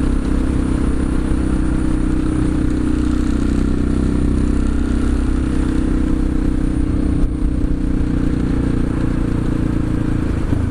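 CCM DS 644 motorcycle's single-cylinder, twin-spark, twin-carburettor engine running at fairly steady revs while being ridden, heard through the rider's helmet microphone.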